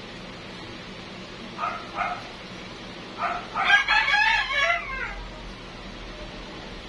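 Animal calls: two short calls about a second and a half in, then a longer call with several parts about three seconds in, the loudest sound here, over a steady low hum.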